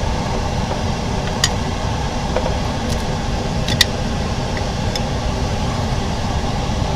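Steady mechanical hum, like a fan or air conditioner, with a few light clicks of small tools or parts being handled.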